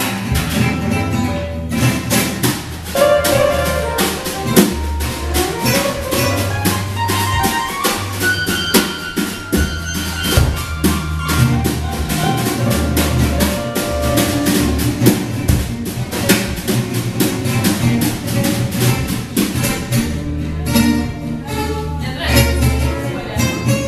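Jazz band playing live: drum kit keeping a fast, steady beat, guitar, and a bass line moving underneath.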